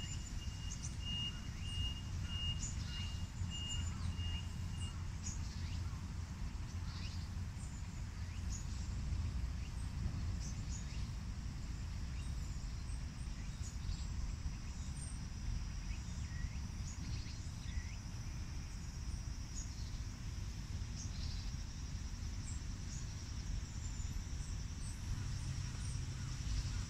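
Outdoor background sound: a steady low rumble with scattered short bird chirps. A high electronic beep, like a vehicle's reversing alarm, repeats about twice a second and stops about five seconds in. From about ten seconds in a faint steady high insect whine runs underneath.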